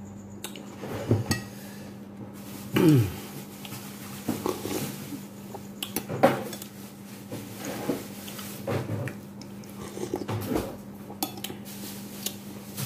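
Metal spoon clinking and scraping against a ceramic plate in scattered short knocks, with a few short sounds that fall in pitch, the loudest about three seconds in, over a steady low hum.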